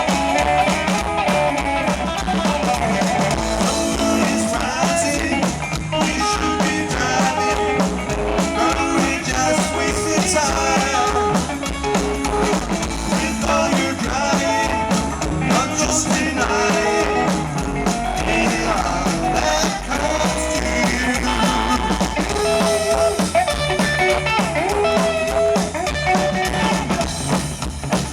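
Rockabilly trio playing live in an instrumental break with no vocals: an electric guitar lead over upright bass and drums.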